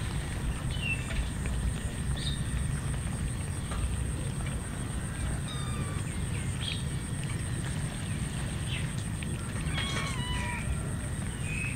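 A pack of cats eating from a heap of rice, heard against a steady low rumble and a thin steady high whine. Short, high, bird-like chirps come and go, with a small cluster of falling chirps near the end.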